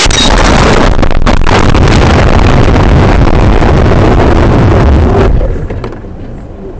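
Vehicle collision: a sharp crash as a Volkswagen minibus slams into a city bus just ahead. About five seconds of loud, continuous crashing and rattling follow while the dashcam is knocked off its mount, then the noise drops away suddenly.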